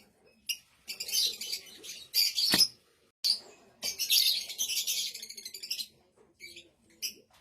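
A blue Fischer's lovebird chirping and chattering in high-pitched bursts, with a rapid run of chatter from about four to six seconds in. There is a sharp click about two and a half seconds in.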